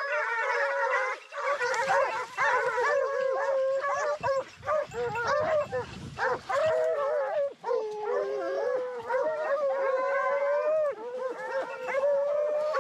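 A pack of Porcelaine scent hounds baying together, many voices overlapping without a break: the pack in full cry on a scent.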